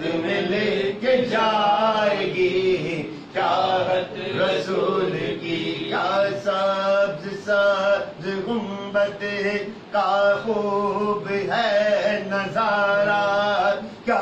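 Men's voices chanting a naat, a devotional poem in praise of the Prophet, in held, wavering sung phrases over a steady low drone.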